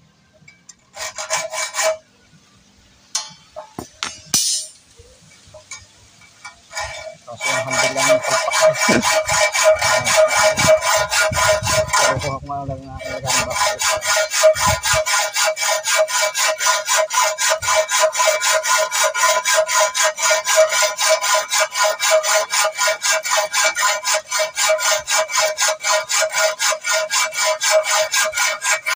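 Hand saw cutting wood in fast, even back-and-forth strokes with a steady ringing note, breaking off briefly about twelve seconds in; before the sawing settles in there is a short burst of strokes and a few scattered knocks.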